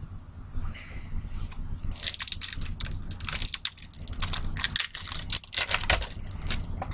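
Foil trading-card pack wrapper crinkling and tearing as a pack is ripped open: a dense run of sharp crackles starting about two seconds in and stopping just before the end, over a low steady hum.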